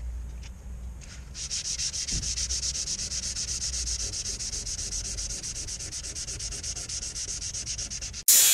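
Hand-sanding painted black car door-pillar trim with 150-grit sandpaper: quick, even back-and-forth strokes starting about a second in, roughing up the chalky flat black paint. The sanding stops abruptly near the end.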